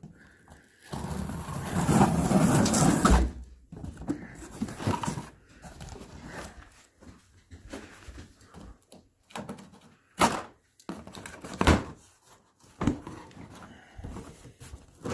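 Cardboard shipping box being cut and torn open, with a loud ripping stretch about a second in lasting some two seconds. After that, cardboard rustles and a few sharp knocks come from loose plastic PVC pipe fittings shifting inside the box.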